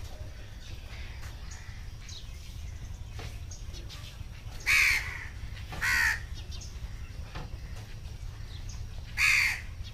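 A crow cawing three times: two calls about a second apart around five and six seconds in, and one more near the end, each short, loud and falling in pitch.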